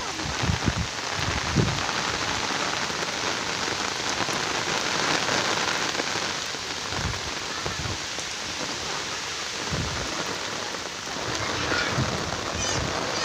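Steady monsoon rain falling on wet ground and puddles, an even hiss throughout, with a few short low thumps.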